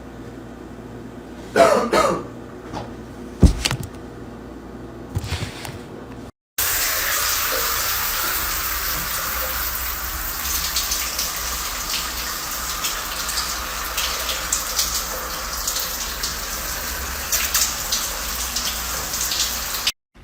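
Running water, a steady, even rushing hiss that starts suddenly about six seconds in and keeps on. Before it come a few short, faint knocks and squeaks.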